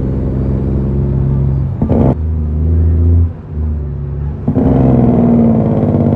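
Western Star truck's diesel engine heard from inside the cab while driving through the gears. The engine note changes and dips between about three and four and a half seconds in, then comes back strongly under load, with a short burst of noise about two seconds in.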